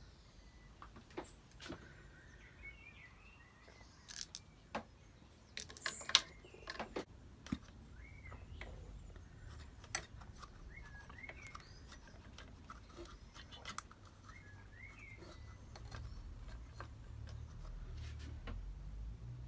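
Scattered clicks and clinks of parts and tools being handled, loudest a few seconds in, with birds chirping in the background and a low rumble rising near the end.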